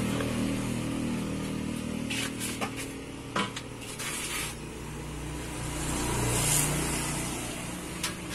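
Motor vehicles running past on the road: one engine fading away at the start and another swelling and fading about six to seven seconds in. A few sharp clicks are heard in between.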